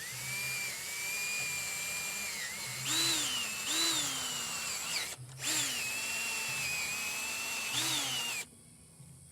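Electric drill running under load while drilling for the negative battery terminal: a motor whine that dips and surges in pitch several times as the bit bites, stops briefly about five seconds in, then runs again and cuts off near the end.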